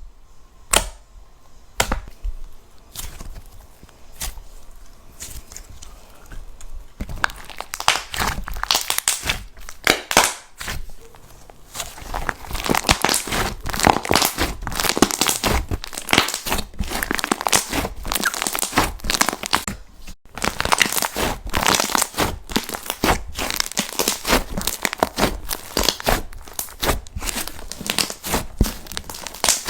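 Jelly slime being poked and squeezed by hand: scattered sharp clicks and pops at first, then from about seven seconds in a dense, continuous crackling.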